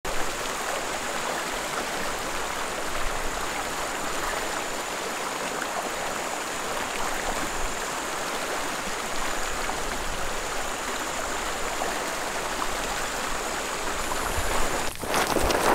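Steady rushing of a stream flowing over rocks, an even wash of water noise that changes abruptly near the end.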